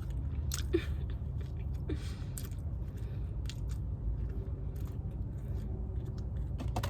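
A person biting into and chewing buttered toast close to the microphone: a few crisp bites among quieter chewing.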